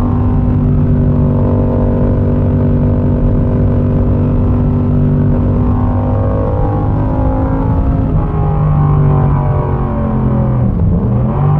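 Yamaha MT-07's parallel-twin engine running through a Mivv exhaust with the dB killer removed, heard onboard while riding. The note holds fairly steady, then its pitch dips and picks up again near the end, like a gear change.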